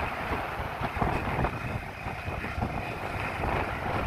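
Wind buffeting the microphone: a steady rush with uneven low gusty rumbles.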